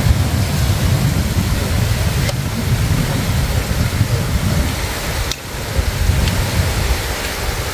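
Wind buffeting the microphone: a loud, rumbling noise that dips briefly about five seconds in.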